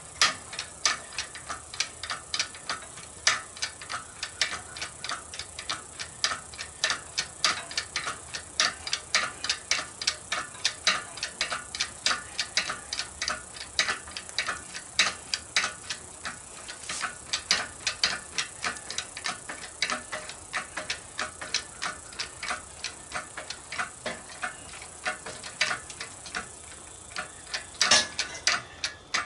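Ratcheting jack being worked to raise a riding mower: sharp, regular clicks about twice a second, with a few short pauses.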